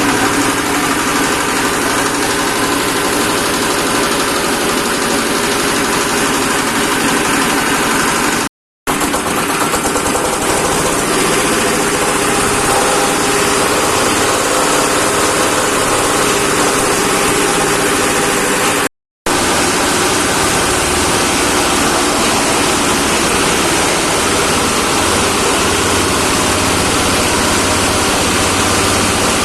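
Engine-driven shredder for branches and organic compost waste running steadily. The sound breaks off completely for an instant twice.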